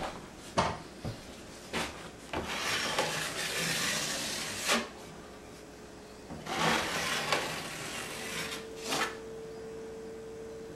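Metal drywall knife scraping all-purpose joint compound across a wall in two long strokes, with a few sharp taps and clicks of the blade in between.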